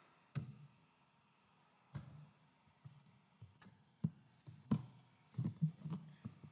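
Faint, irregular clicks of computer keys and a mouse, about a dozen taps, bunched more closely in the second half, as semicolons are typed into code.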